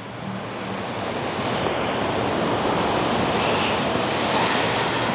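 Ocean surf washing onto the beach, swelling over about the first second and then holding steady, with some wind on the microphone.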